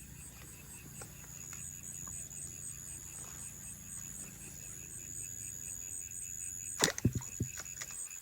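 Night insects, crickets, chirping in an even rhythm of about three high chirps a second over a steady high-pitched trill. A few sharp knocks come near the end.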